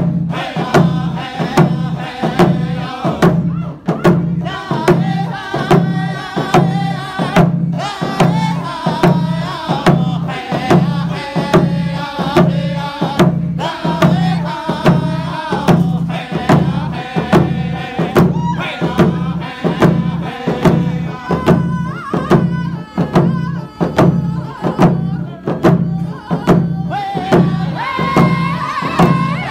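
A group of men singing a round dance song together while beating large hand-held frame drums in a steady, even beat. Near the end the voices lift to a higher pitch.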